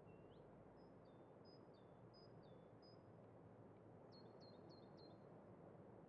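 Faint birdsong over a low, steady background hum. A bird repeats short whistled notes that step down in pitch, then gives a quicker run of four notes about four seconds in.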